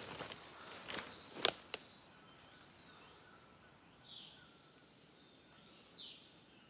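Footsteps through forest leaf litter with a few sharp twig snaps in the first two seconds. Then birds give several short downward-sliding chirps over a steady high insect whine.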